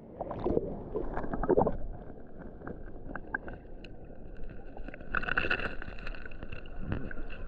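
Water splashing and sloshing close to the microphone in uneven surges, over the steady rush of a waterfall.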